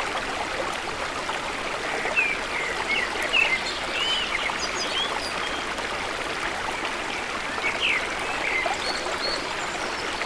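Stream water running steadily, with short bird chirps now and then, a cluster about two to three and a half seconds in, another around five seconds and a few near eight seconds.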